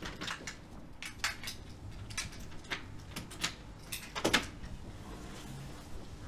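Keys jingling and a door being handled: a string of small clicks and rattles, with one louder knock about four seconds in.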